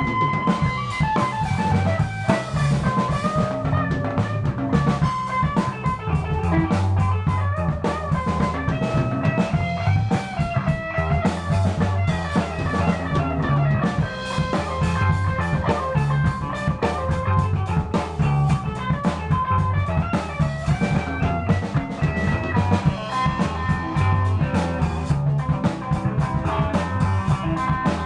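A live rock band jamming: a drum kit keeps up a steady beat under electric guitar lines, with a bass line beneath.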